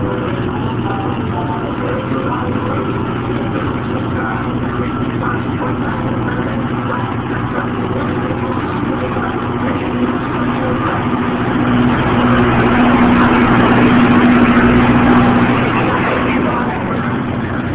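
Casey Jr. Circus Train running along its track, heard from on board: a steady mechanical rumble and hum that grows louder for a few seconds past the middle, then eases back.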